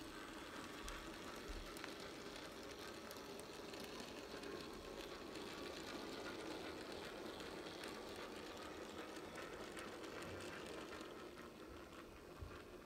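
009 gauge model locomotive running along the track with its wagons: a faint, steady whirr of the small electric motor and the wheels on the rails, dying away near the end.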